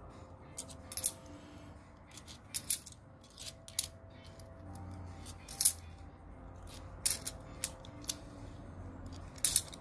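Stacked bimetallic 2-euro coins clinking against each other as they are slid off a handheld stack one by one, with some set down on a wooden table: irregular light metallic clicks, about a dozen in all.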